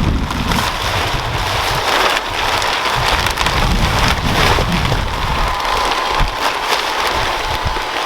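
Loose garden soil pouring and sliding out of a wheelbarrow as it is unloaded: a continuous rushing hiss.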